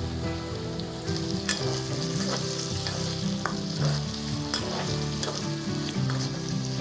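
Food frying in a hot pan, sizzling steadily while it is stirred, with the occasional click and scrape of a spatula against the pan.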